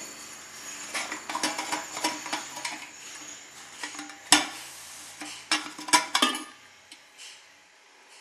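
Brass burner cap of a Valor paraffin heater being worked loose and lifted off its metal fuel tank: metal scraping and clinking, with sharp knocks about four seconds in and again around six seconds.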